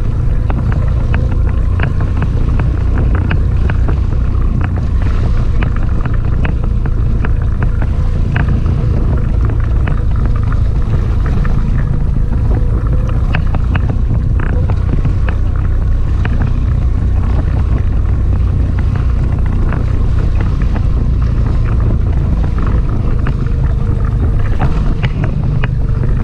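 Strong wind buffeting the microphone of a small inflatable boat in rough sea, with waves slapping and splashing against the hull again and again.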